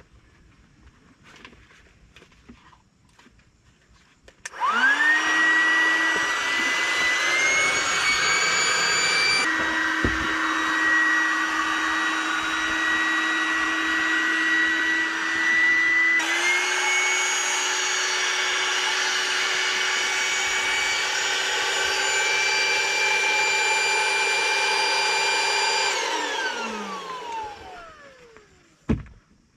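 Small electric air pump inflating an air mattress. Its motor whirs up about four seconds in and runs steadily for about twenty seconds, its pitch stepping up slightly a couple of times, then it is switched off and winds down with a falling whine. A brief knock follows near the end.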